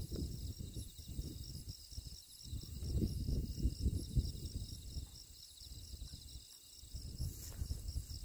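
Insects chirping in steady, evenly pulsing high-pitched trills, over an uneven low rumble that rises and falls.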